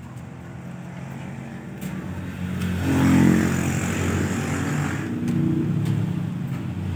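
Engine of a motor vehicle going by, growing louder to a peak about three seconds in and then running on at a steady level.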